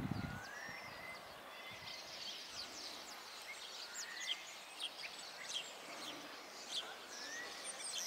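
A flock of small birds chirping: many short, high chirps overlapping, with a few rising whistled notes. A low rumble cuts off just after the start.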